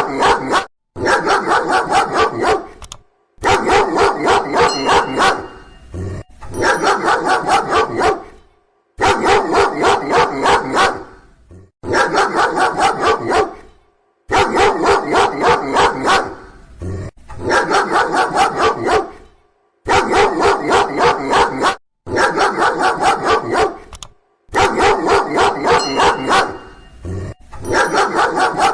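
A dog barking loudly and rapidly, about three or four barks a second, in runs of roughly two seconds broken by short, abrupt pauses.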